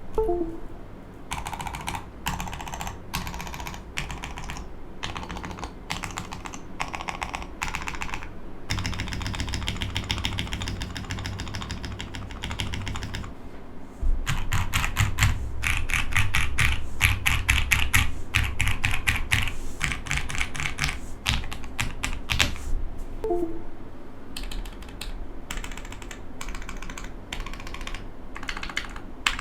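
Custom mechanical keyboard being typed on: runs of rapid keystrokes broken by short pauses. The typing gets louder and deeper about halfway through.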